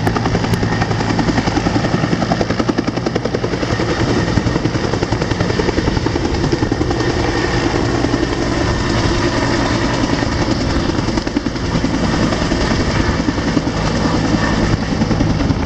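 Rescue helicopter running close by: a steady, loud, fast beating of the rotor over a low engine hum.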